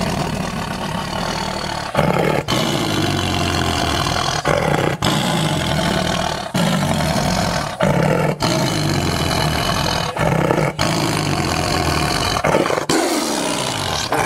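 Tigers growling and roaring while eating meat: a loud, rough, continuous sound broken by short gaps every second or two. It is the big cats' aggressive feeding behaviour.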